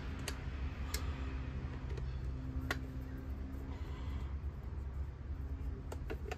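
Screwdriver loosening the screws of a distributor cap, giving a few sharp, scattered clicks over a steady low hum.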